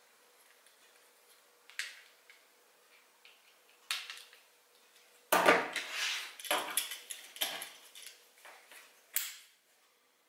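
Workbench handling noise: a few small clicks, then a steel multitool set down with a clatter about five seconds in, followed by a run of sharp clicks and knocks from a Kydex sheath and its belt clip being handled. One last sharp click comes near the end.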